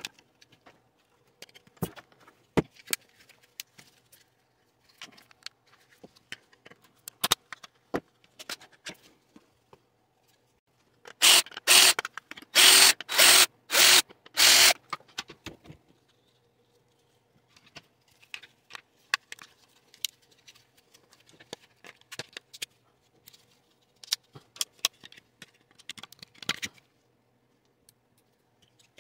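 Hands-on work taking apart a General Electric air conditioner for scrap metal: scattered clicks and clanks of metal parts. Near the middle comes a run of about six loud, harsh scraping bursts.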